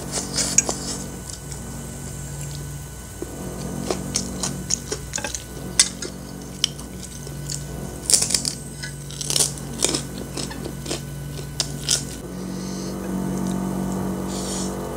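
Close-up eating sounds: slurping and chewing Indomie goreng instant fried noodles, with a metal fork clinking and scraping on a ceramic plate, and the crunch of a krupuk cracker being bitten about eight seconds in. A steady low hum runs underneath.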